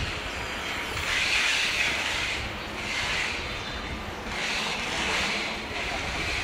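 City street ambience: a low steady traffic rumble under a high hiss that swells and fades every second or two.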